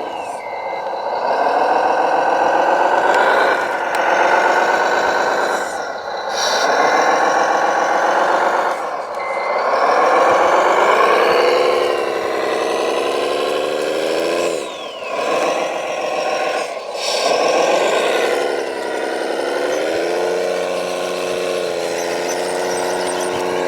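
Radio-controlled model trucks' electric drive motors and gearboxes whining, the pitch rising and falling as the throttle is worked, with short pauses every few seconds and a steadier, lower whine near the end.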